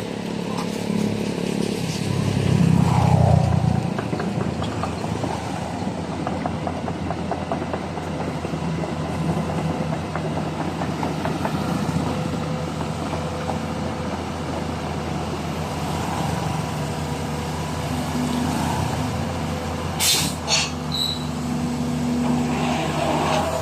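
Backhoe engine running steadily as the machine is loaded onto a truck, getting louder about two to four seconds in. A few short sharp knocks come near the end.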